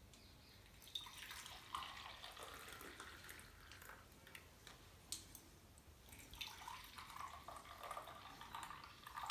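Hot milky tea poured from a steel saucepan through a strainer into steel tumblers: a faint trickle and splash of liquid in two stretches, with a few light clicks of metal.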